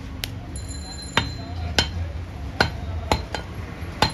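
Butcher's knife chopping goat meat on a wooden chopping block: six or seven sharp knocks at irregular intervals, about one every half second to a second.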